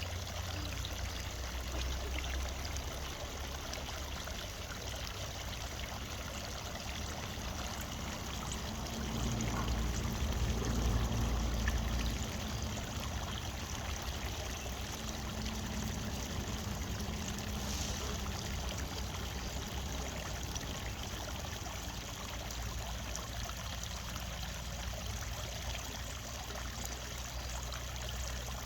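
Water from a countryside fountain flowing and trickling steadily. A low rumble swells briefly about nine seconds in.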